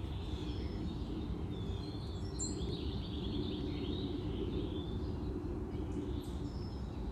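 Steady low background hum with faint bird chirping for a couple of seconds in the middle.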